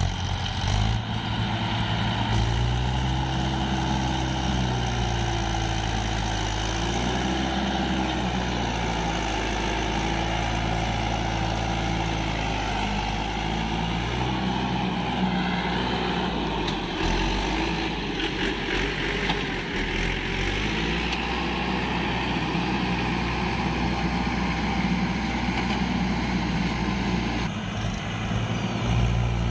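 Swaraj 843 XM tractor's diesel engine working under load as it hauls a fully loaded trolley through deep mud. Its pitch rises and falls for the first several seconds, then runs steadily.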